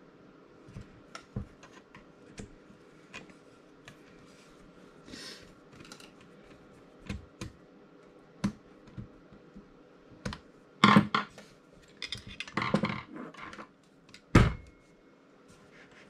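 Small metal parts and screws clicking and clattering as they are handled and fitted onto a coffee grinder's motor housing, with louder knocks and a brief scrape in the last few seconds.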